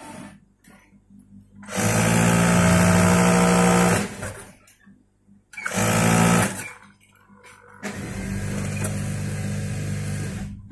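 Typical industrial single-needle sewing machine stitching in three runs: one of about two seconds, a short one of about a second, and a longer one of nearly three seconds near the end, each a steady machine sound.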